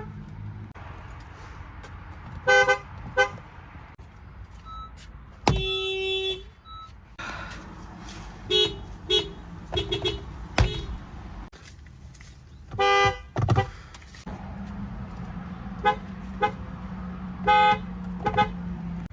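Car horns from several different cars sounding at different pitches: about a dozen short toots, some in quick pairs and runs, and two longer blasts. A steady low hum runs under the second half.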